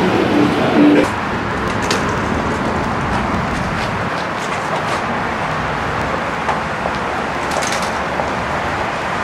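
Steady outdoor road-traffic noise, with a few brief pitched sounds in the first second.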